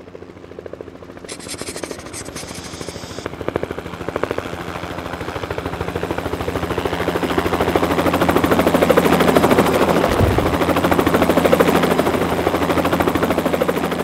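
Helicopter starting up, its rotor chopping in a fast even beat that grows steadily louder. About a second in, a high hiss runs for about two seconds.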